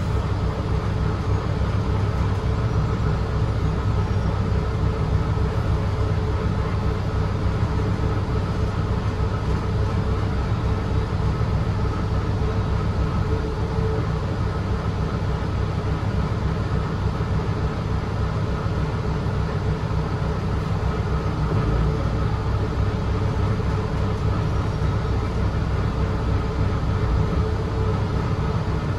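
Interior running noise of a 2017 Gillig Low Floor 40 ft transit bus on the move: a steady low rumble of engine and road, with a steady mid-pitched hum over it.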